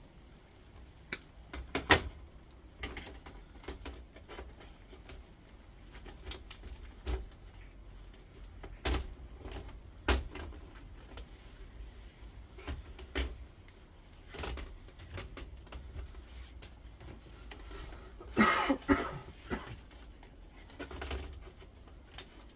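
Hand snips cutting through the copper coil of an induction hob: a string of irregular sharp snips and clicks, the loudest about two seconds in, with a denser clatter of metal around eighteen seconds in.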